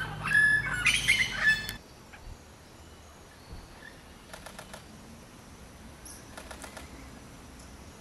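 Buff-rumped warbler singing close by: a loud run of ringing notes that grows louder and stops about two seconds in, followed by only faint ticks.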